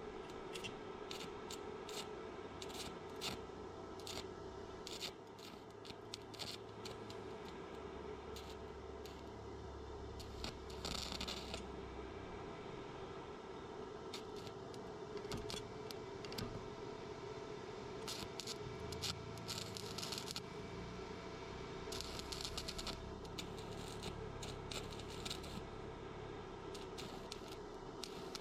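Hand work on the metal parts of a folding cart's wheel assembly: scattered clicks and clinks of tools and parts being handled, with a few short scraping bursts, over a faint steady hum.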